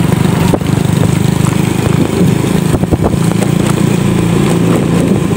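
Motorcycle engine running steadily while riding along a dirt road, with a few short knocks from the bumps.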